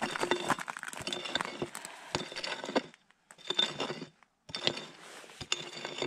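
Prospecting pick digging into stony, gravelly soil: a string of sharp clinks and scrapes as the blade strikes rocks and drags through dirt, roughly one every half second to second, with two brief silent gaps in the middle. The prospector is digging out a metal detector signal.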